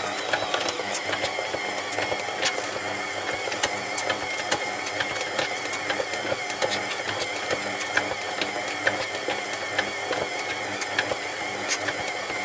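Stand mixer running at second speed, its motor and gears whirring steadily as the dough hook kneads brioche dough in a metal bowl, with scattered irregular clicks.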